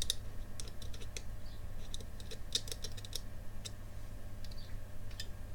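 Light, irregular clicks and taps from handling an opened 2.5-inch laptop hard drive, its bent head arm pushed back and forth as it sticks and jams partway across its travel. A steady low hum runs underneath.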